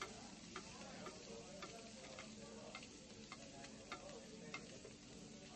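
Pieces of food frying in foaming butter in a pan, sizzling faintly, with a spoon clicking lightly against the pan roughly twice a second as it bastes.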